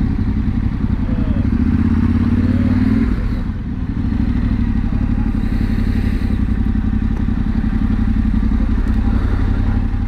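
Yamaha Ténéré 700's parallel-twin engine running at low speed. The revs rise briefly about two seconds in, ease off, and then settle into steady low-speed running.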